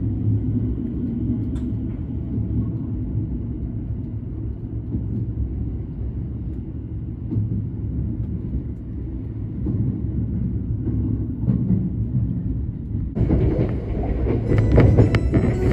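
Cabin running noise of a Hokuriku Line limited express electric train moving off from the station: a steady low rumble of wheels on rails and the car body. Near the end, background music comes in over it.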